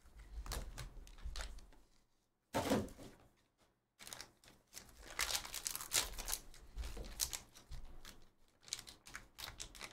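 Hands sliding open a small cardboard trading-card box, then tearing and crinkling the foil wrapper of a trading card pack: scattered rustles and clicks at first, then from about four seconds in a dense run of sharp crackling and tearing.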